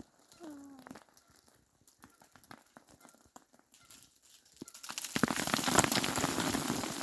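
Ice shedding from tree branches and showering down through the trees onto crusted snow: a dense crackle of many small clicks and rattles that sets in suddenly about five seconds in, after near quiet.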